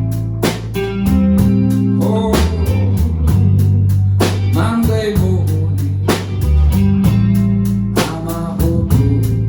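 Live blues band playing a slow blues: guitar over a low bass line, with a drum kit keeping a steady beat.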